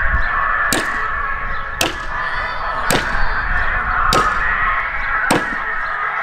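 An axe chopping into the wooden trunk of a maypole: five sharp blows of the blade biting into the wood, roughly one a second, over a steady background din.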